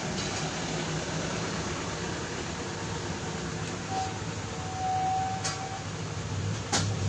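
A steady mechanical hum. About four seconds in a thin steady tone sounds for about two seconds, and two sharp clicks come near the end, the second the louder.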